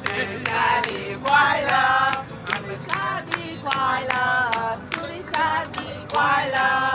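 Several voices singing a song together, with hands clapping in time at about two claps a second.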